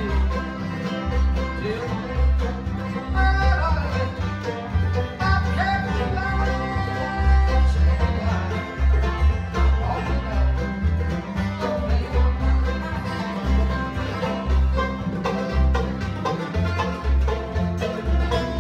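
Bluegrass band playing an instrumental: banjo and acoustic guitar picking over an upright bass that pulses steadily on the beat.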